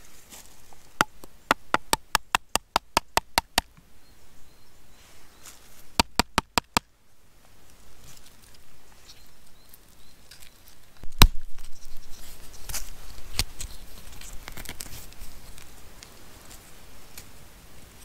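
A run of quick, evenly spaced sharp clicks, then a few more. About eleven seconds in, a sharp crack and rough crunching and crumbling as a hollow, bird-shaped earthen object is broken open by hand.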